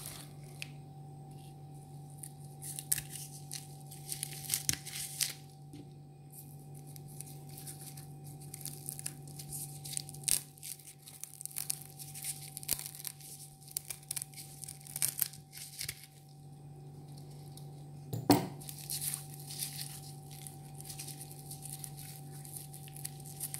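Coconut husk fibres being torn and snipped away with scissors and fingers: repeated short, scratchy tearing sounds, with one sharp knock about eighteen seconds in. A steady low hum runs underneath.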